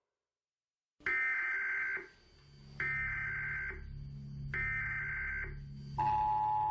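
Emergency Alert System signal: three roughly one-second bursts of high, screechy data tones, then about five seconds in the steady two-tone attention signal begins, announcing an emergency broadcast.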